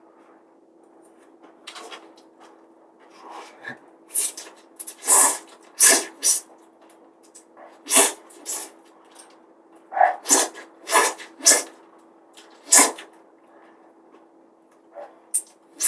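A person slurping instant noodles in repeated short, loud sucks, several in quick clusters, over a faint steady hum.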